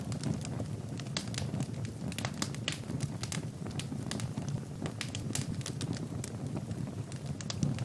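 Wood fire burning in a fireplace, crackling with frequent irregular sharp pops over a low steady rumble of the flames.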